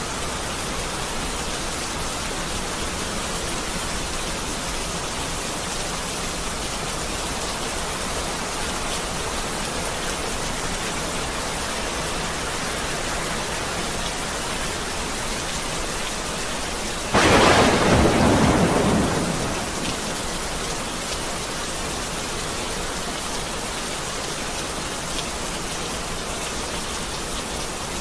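Steady heavy rain falling, with one sudden loud clap of thunder about two-thirds of the way through that fades away over two or three seconds.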